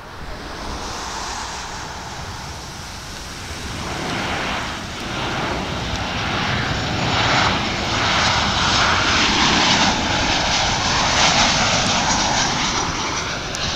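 Boeing 737-800 airliner on final approach, its two CFM56-7B turbofan engines making a steady jet rush that grows louder as the plane comes in low and passes close by. It is loudest in the later part and eases off slightly at the very end.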